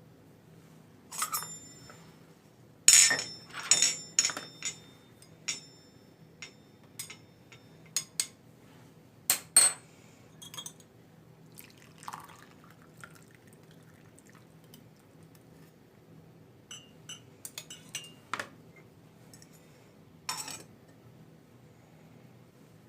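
Glass clinking and knocking at irregular moments, some strikes ringing briefly, with liquid being handled in between.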